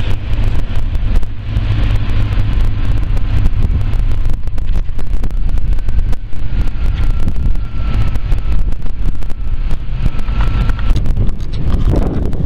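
Wind buffeting the microphone in heavy gusts over the steady low running of nearby truck engines.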